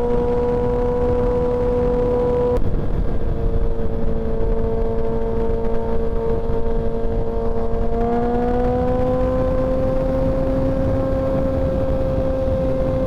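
Suzuki Hayabusa's inline-four engine running steadily at cruising speed, with heavy wind and road noise on the rider's microphone. A little past halfway the engine note rises slightly and holds higher as the bike speeds up.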